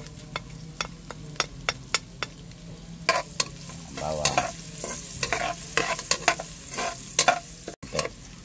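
Minced garlic sizzling in hot oil in a large aluminium pot while a metal spatula scrapes and taps against the pot in quick, uneven strokes: garlic being sautéed and lightly browned.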